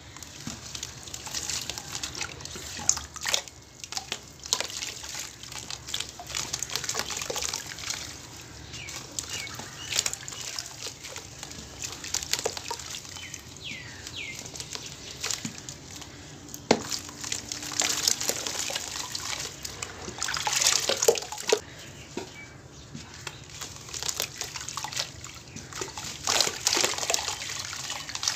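Wet cement and baking soda chunks crumbling and splashing into a basin of water, with squelching as hands squeeze the paste under the water. Short crackles and drips run throughout, with heavier splashy rushes about two-thirds of the way through and again near the end.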